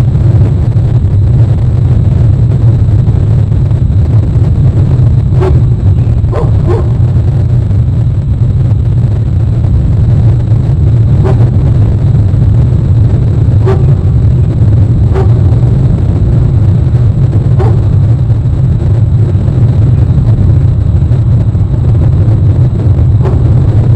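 Loud steady low rumble throughout, with about eight short, sharp bark-like calls at irregular intervals, two close together about six and a half seconds in.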